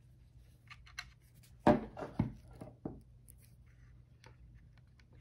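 Small clicks and taps of a metal tool and parts being worked into a Kyosho Raider's plastic gearbox, with a louder knock and rattle a little under two seconds in, followed by a few more knocks.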